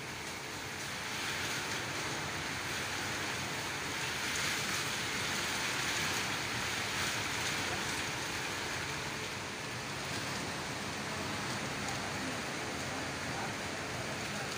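Heavy typhoon rain and wind outside a window: a steady rush of noise that swells for several seconds in the middle, then eases.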